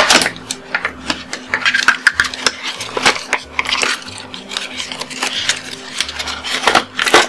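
Webcam packaging being handled and pulled apart by hand to free the camera: irregular rustles and clicks, with a sharp knock at the start and another near the end, over a faint steady hum.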